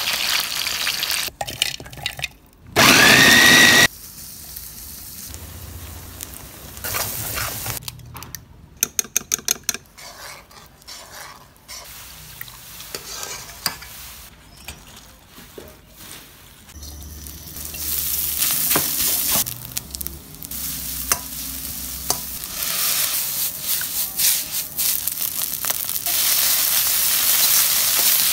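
Food frying in hot oil in a wok, sizzling and bubbling as sliced garlic and beaten egg go into the oil, with a metal ladle clinking and scraping against the wok as rice is stirred. A quick run of sharp taps comes about a third of the way through, and a steady loud sizzle fills the last third.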